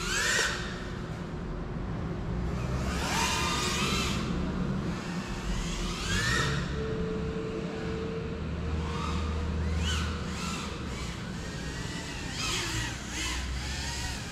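GEPRC CineLog35 3.5-inch cinewhoop's motors and ducted propellers whining, the pitch rising and falling with repeated throttle punches, over a low steady rumble.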